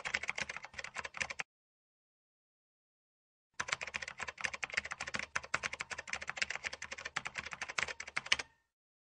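Rapid keystroke clicks of a typing sound effect, running for about a second and a half, stopping dead for about two seconds, then typing again for about five seconds before cutting off shortly before the end.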